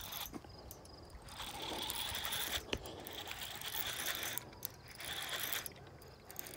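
Fishing reel ratcheting in two long runs, the second shorter, while a hooked fish is played on the line.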